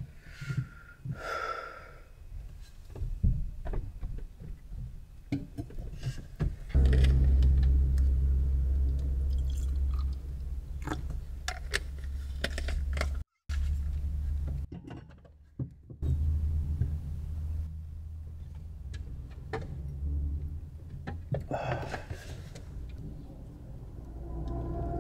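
Kitchenware being handled and set down on a wooden table: scattered knocks and clicks, over a low steady hum that starts about seven seconds in.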